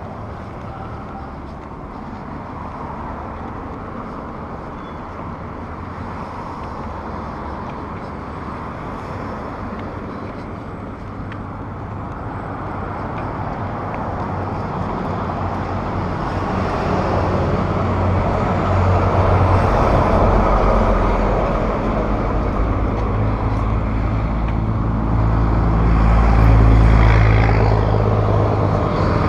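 A car driving, its engine and tyre noise steady with a low rumble, growing louder in the second half as it picks up speed.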